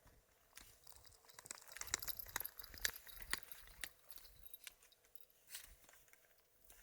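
Snow crunching: a run of irregular crunches and clicks, densest about two to three seconds in, then thinning out.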